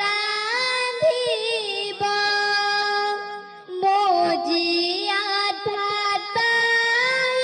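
A young girl singing solo into a microphone, holding long notes with a slight waver and taking a brief breath about three and a half seconds in.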